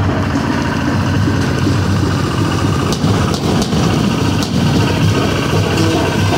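Tractor engine idling steadily with an even low pulsing hum, and a few sharp clicks in the middle.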